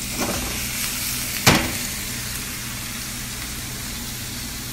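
Onions sizzling as they fry in hot olive oil in a pot, with one sharp knock about one and a half seconds in and a steady low hum underneath.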